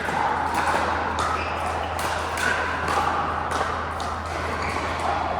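Pickleball paddles striking the ball: several sharp pops a second or so apart, over a steady low hum.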